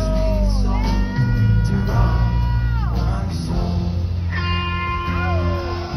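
Live rock band playing: long held lead-guitar notes that bend and slide down in pitch, over a heavy steady bass and drums.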